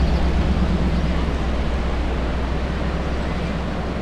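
Wind buffeting the microphone over surf breaking on the beach, a steady rush with a low rumble that eases slightly over the first couple of seconds.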